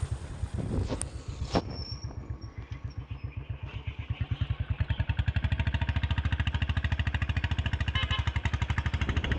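Royal Enfield Bullet's single-cylinder engine running under way, with its even, rapid exhaust beat. Wind rushes over the microphone at first and cuts off suddenly about a second and a half in; the engine beat grows louder and steadier after that.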